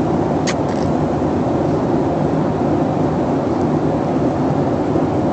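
Steady airliner cabin noise in flight, a constant drone of engines and airflow, with a light click about half a second in.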